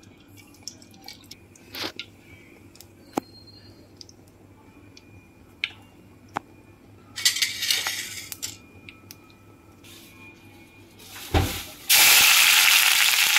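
Chopped onions dropped into hot mustard oil in a kadai: a low thump, then loud steady sizzling near the end. Before that, faint scattered ticks and a brief burst of hissing about seven seconds in.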